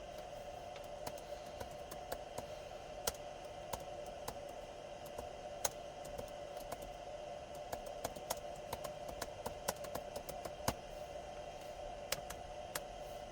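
Typing on a computer keyboard: irregular keystroke clicks, some in quick runs and some spaced a second or more apart, over a steady low hum.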